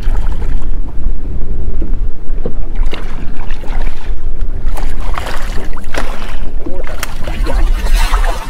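Steady wind rumble on the microphone, with bursts of splashing from a hooked redfish thrashing at the water's surface beside the boat, heaviest in the second half.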